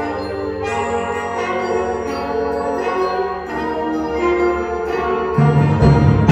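Student concert band playing sustained woodwind and brass chords with mallet-percussion notes on top. A louder low part comes in about five seconds in.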